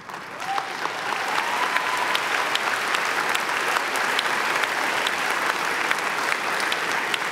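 Large audience breaking into sustained applause, starting suddenly and holding steady, with one long rising cry or whistle rising over it near the start.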